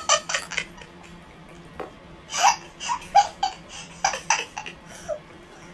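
A young woman laughing in short bursts, starting right away and breaking out again several times from about two seconds in, over a faint steady hum.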